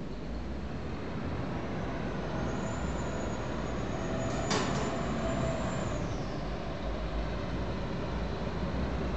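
RiverCat catamaran ferry's engines running with a steady low rumble and churning water as it pulls away from the wharf. A faint high whine rises in the middle, and a single sharp click sounds about four and a half seconds in.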